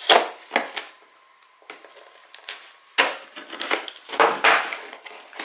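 Cardboard box being handled and its taped seals opened: bursts of scraping and tearing cardboard near the start and again from about three seconds in.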